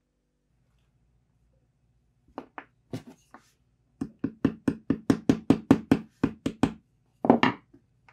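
Small hammer tapping metal parts of a can opener's toothed steel cutter wheel on a wooden bench. A few scattered knocks come first, then a quick even run of about fourteen taps, about five a second, and a louder knock near the end.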